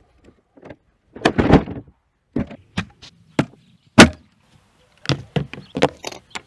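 Hard plastic clacks and knocks of a folding plastic workbench being opened out and locked upright, with a rattling scrape early on and the sharpest knock about four seconds in. It is followed by a quick run of lighter clicks and taps as gear is set down on the tabletop.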